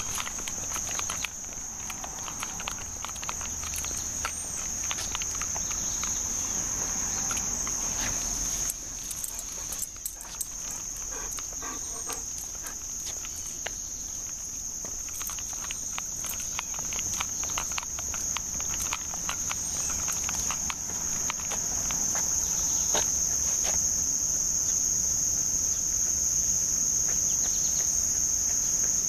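Steady high-pitched chorus of summer insects, most likely crickets, droning without a break, with scattered light footsteps and clicks on the pavement.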